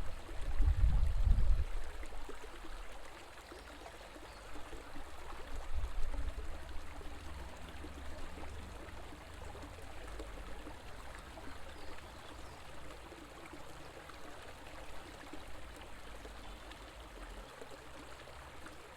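River water flowing, a steady rush of running water. A deep low rumble is loudest about a second in and comes back more weakly a few times.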